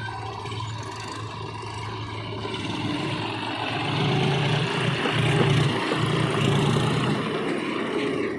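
Diesel engine of a JCB 3DX backhoe loader running, growing louder about four seconds in as it works, with two brief dips.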